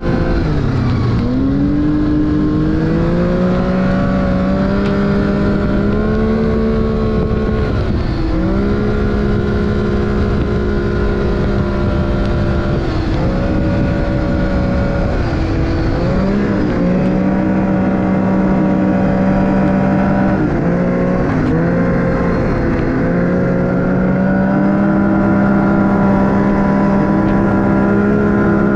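Arctic Cat snowmobile engine running under way, its pitch climbing as it pulls off at the start. It then holds steady, dropping and picking back up several times as the throttle is eased and reapplied.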